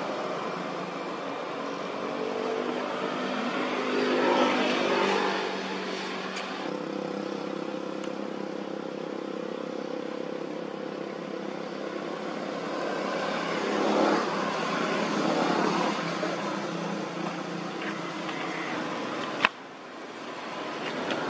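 Steady noise of motor vehicles running and passing, swelling louder about 4 seconds in and again around 14 seconds. A single sharp click comes near the end, and the sound drops abruptly right after it.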